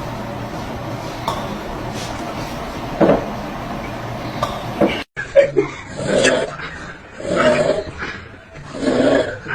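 Steady background hum with a few faint clicks, then, after a cut, rhythmic snoring: a rasping snore about every second and a half.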